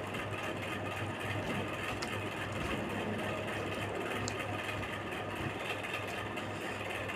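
A steady low hum with constant background noise, like a motor running, with a couple of faint clicks.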